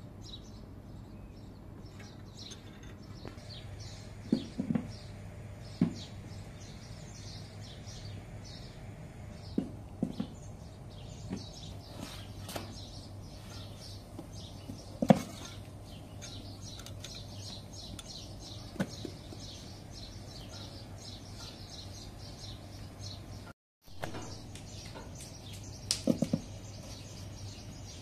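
Small birds chirping steadily in the background, over a low steady hum. A few sharp clacks and taps, the loudest about halfway through, come as a wooden spatula knocks against the iron griddle while turning the flatbread.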